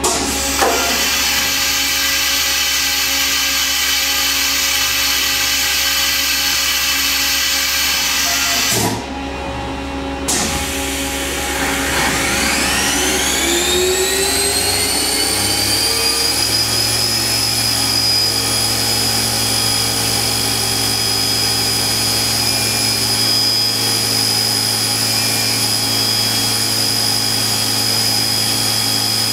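Fadal VMC 15XT vertical machining center's spindle running at high speed with a hiss. It cuts out about nine seconds in, and after a click it spins back up, its whine rising for several seconds and then levelling off into a steady high-pitched whine.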